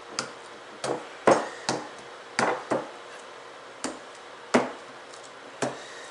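A fork stabbing into the hard rind of spaghetti squash halves: about nine sharp knocks at an uneven pace.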